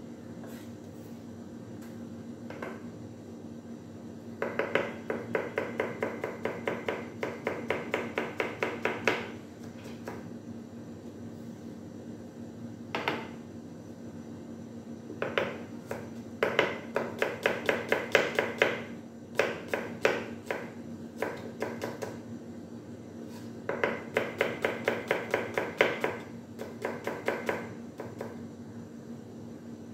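Chef's knife chopping vegetables on a plastic cutting board in quick runs of about five strokes a second, with pauses between runs. A steady low hum runs underneath.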